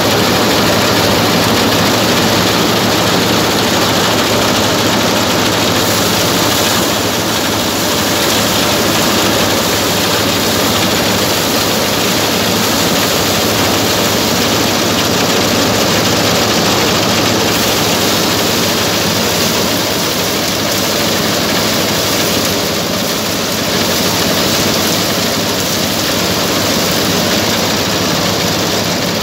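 Diesel-engine-driven paddy thresher running steadily at work: a constant low engine hum under a dense rattle of grain and straw being thrown across the shaking sieve.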